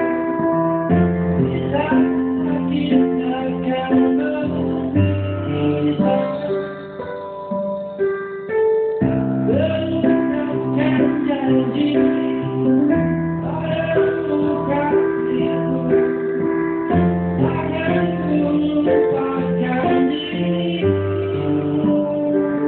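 A woman singing a song over keyboard chords, with guitar accompanying.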